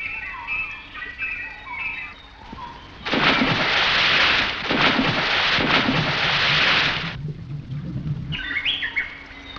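Jungle bird calls, short chirps and whistles, on an old film soundtrack. About three seconds in, a loud splash into the water sets off a rushing of water that lasts about four seconds, and the bird calls return near the end.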